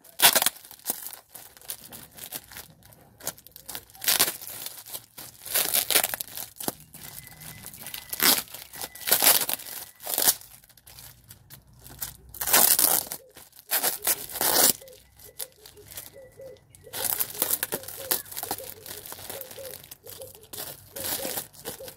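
A parcel with a dress inside being unboxed: its packaging torn and crinkled in irregular bursts with short pauses between.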